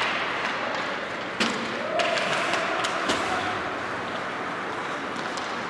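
A few sharp knocks and thuds, the loudest about one and a half, two and three seconds in, over a steady din of background noise.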